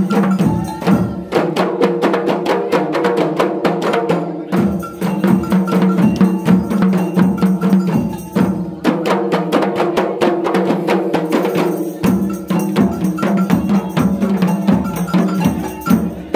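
Kompang, Malay hand-struck frame drums, played by a group in a fast interlocking rhythm. The strikes come in phrases with short breaks every few seconds.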